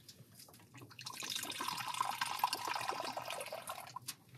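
Liquid poured from an insulated bottle into a small cup: a steady pour that starts about a second in and stops shortly before the end, followed by a short click.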